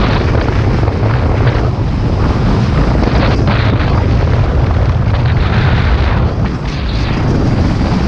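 Speedboat engine running under way, a loud steady low rumble, mixed with wind buffeting the microphone.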